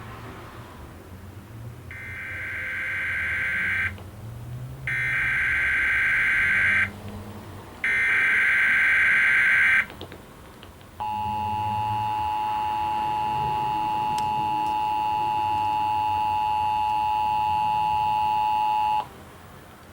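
Emergency Alert System signal for a test tornado warning, broadcast on TV. Three buzzy bursts of SAME digital header data tones, each about two seconds long with a short gap between, are followed about a second later by the steady two-tone EAS attention signal, held for about eight seconds before cutting off.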